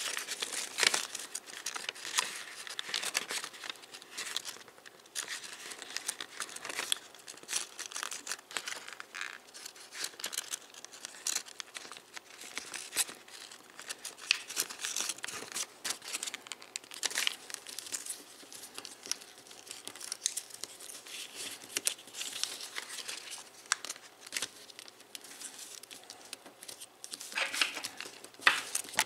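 A sheet of origami paper crinkling and rustling as hands fold and crease it, in irregular crackles, with a louder flurry near the end.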